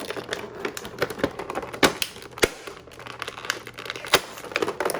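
Plastic packaging crackling and clicking as a small action figure is pried out of its tray, a run of irregular ticks with a few sharper snaps about two seconds in and again near four seconds.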